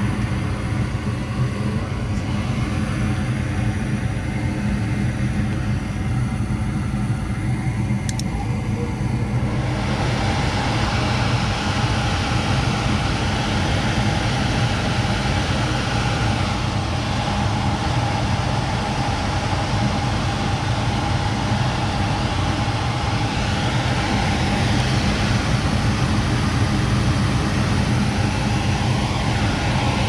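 Goodman gas furnace running a heat cycle: the draft inducer motor hums steadily, and about nine seconds in there is a click and then a louder steady rushing noise, the sound of the burners lighting.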